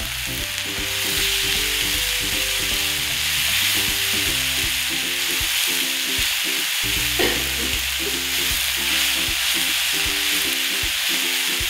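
Sliced red and bird's-eye chilies with tomato and spices frying in oil in a nonstick pan, sizzling steadily while a spatula stirs them.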